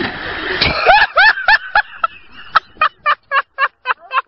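A brief noisy splash of water and breaking ice for about the first second, then a man laughing hard in two runs of short 'ha' bursts, about four a second, with a short pause between them.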